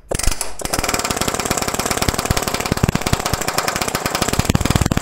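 Pneumatic air chisel hammering rapidly on sheet steel, driving into the seam between the rocker panel and the body to split the drilled-out spot welds apart.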